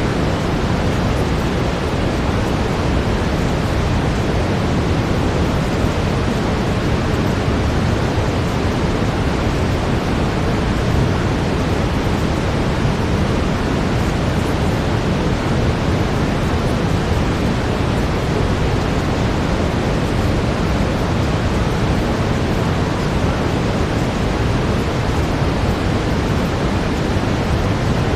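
Steady brown noise: an even, unbroken hiss, heaviest in the low end.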